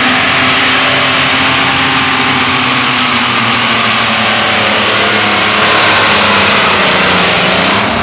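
Modified pulling tractor's engine running at full throttle while it drags the weight sled down the dirt track, loud and steady, through to a full pull.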